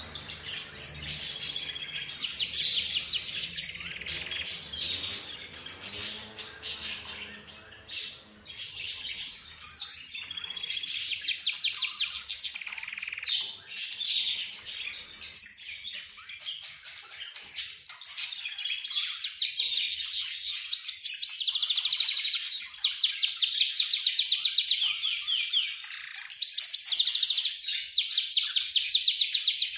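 A mix of caged birds, budgerigars, lovebirds, zebra finches and a canary, chirping and singing over one another. Fast, even trills grow denser and almost continuous through the second half.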